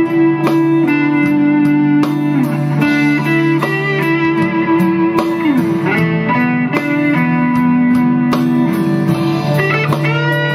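PRS singlecut electric guitar with tremolo, played through Skreddy Screwdriver and Cusack Screamer drive pedals into a Dr. Z amp: a slow lead line of held, sustaining notes with slides between them, and a wavering vibrato on a held note near the end.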